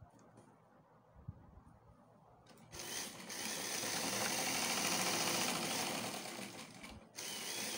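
Electric sewing machine stitching a seam in trouser fabric. It starts about three seconds in, gathers speed, then slows and stops about a second before the end.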